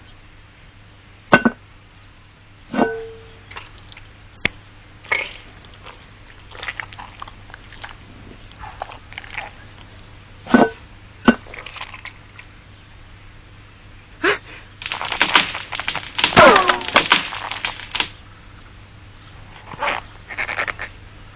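Sparse cartoon sound effects: single short knocks and plops scattered through, then, about fifteen seconds in, a few seconds of dense clatter with a falling, whistle-like glide.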